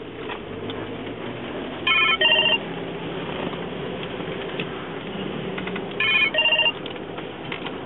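Phone ringing with an electronic double ring that repeats about every four seconds, heard twice, over the steady road noise of a moving car.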